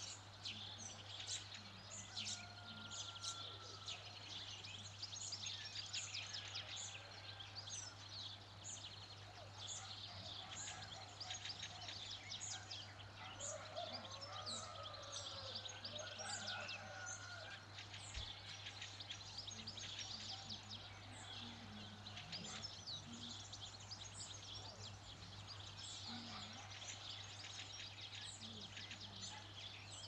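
Many songbirds chirping and singing together, a dense chorus of short high-pitched chirps, with some lower curving calls about halfway through. A steady low hum runs underneath.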